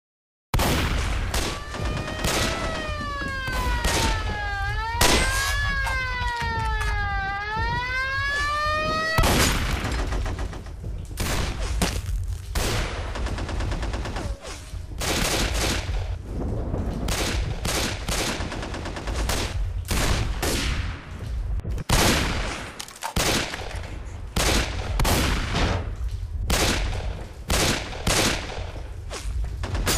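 Rapid gunfire in volleys, with a siren wailing up and down over it for the first several seconds. After the siren stops, the gunfire carries on in dense bursts of shots.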